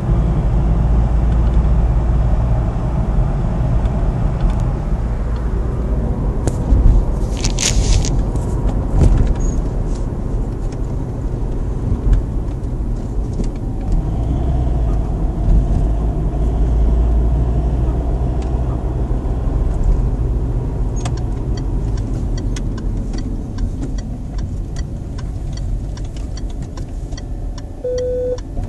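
Citroën C4 engine running with a steady low rumble, held around 2000 rpm, where it gives the squeak its owner is recording. A brief high squeak stands out about a quarter of the way in. In the last third a regular ticking sets in, about two ticks a second.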